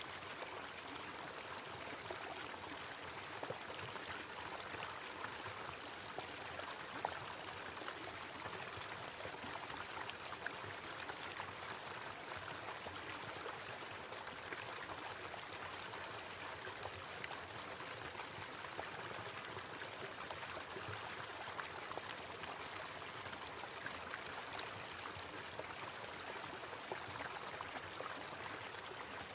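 A small waterfall: water falling and splashing in a steady, even rush.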